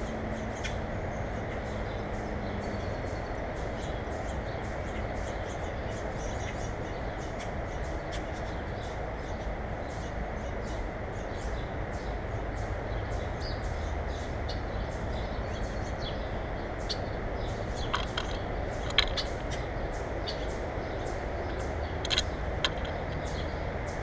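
Steady muffled background rumble, with scattered faint ticks and a few sharper clicks in the second half.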